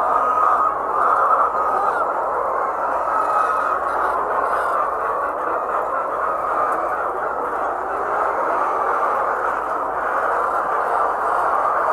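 A large flock of laying hens calling all at once, a steady dense chorus of clucking and squawking.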